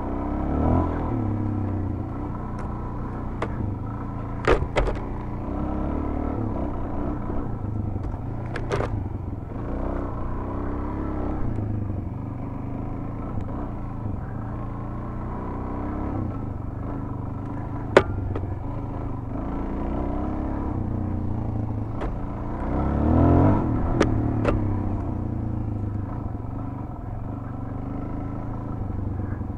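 Suzuki DR-Z400's single-cylinder four-stroke engine running under way off-road, rising and falling with the throttle and swelling most strongly about two-thirds of the way through. Several sharp knocks and clicks cut through, the sharpest about 18 seconds in.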